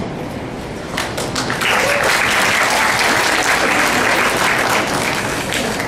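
Audience applauding. Scattered claps begin about a second in, build into full, dense applause, then taper off near the end.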